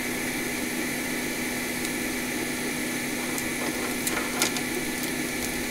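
Steady hum of a fan running, with a few faint ticks.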